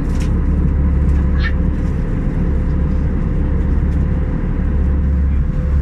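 Steady cabin noise of an Airbus A319-111 in cruise: a continuous low rumble of the CFM56 engines and the airflow over the fuselage, with a steady hum. Two faint clicks come within the first two seconds.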